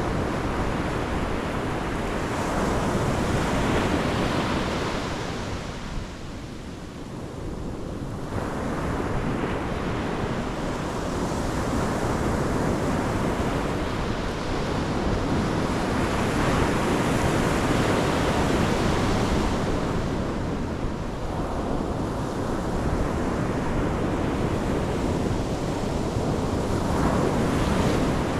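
Pacific Ocean surf breaking on the shore: a continuous wash of waves that swells and eases, dipping briefly a few seconds in and building again, with some wind buffeting the microphone.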